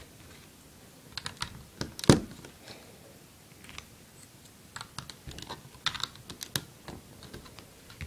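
Plastic Lego bricks clicking and tapping as pieces are handled and pressed on, in scattered irregular clicks with the loudest about two seconds in.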